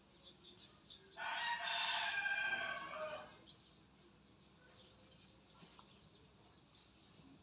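A rooster crowing once, a single call of about two seconds that starts about a second in and trails off lower at its end.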